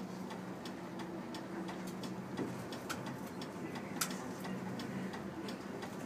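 Bus turn-signal relay clicking steadily, a few ticks a second, while the bus turns left, over the steady low hum of the bus running.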